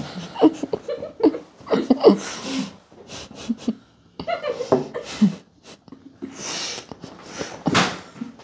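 Two boys stifling laughter with their mouths full of cookie: giggles, snorts and breathy bursts through the nose, with a couple of louder airy bursts near the end.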